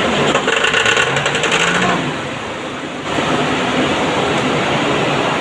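Engine of a BOMAG machine running, with a fast, rapid mechanical clatter. The sound eases off about two seconds in and comes back up about three seconds in.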